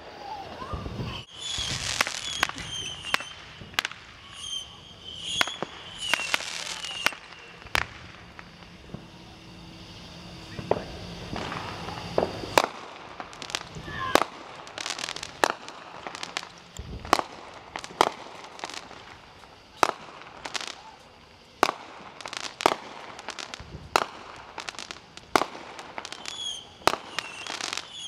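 Aerial fireworks going off: a long, irregular run of sharp bangs and pops, with a few wavering high whistles among them.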